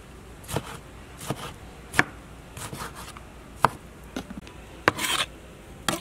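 Chef's knife chopping tomatoes on a wooden cutting board: single sharp knocks at an uneven pace, roughly one every half second to a second, with a brief scraping sound a little after five seconds in.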